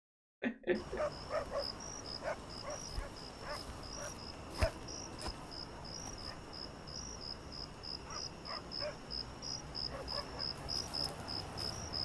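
Crickets chirping in a steady train of short, high-pitched pulses, about three a second, over a low background hum. A few faint taps and one louder thump a little before the middle.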